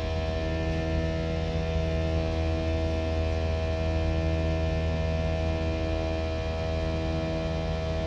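Airbus A319 jet engine and airflow noise heard inside the passenger cabin in the climb after takeoff: a steady, quite noisy drone with a low, even hum and several steady tones above it.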